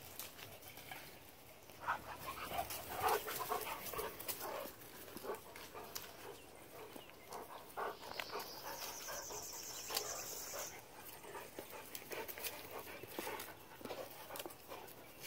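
A young Great Dane mix dog close by, panting and giving short vocal noises, loudest a few seconds in, with crackling of dry leaves and grass throughout. A high pulsing trill sounds for about two seconds around the middle.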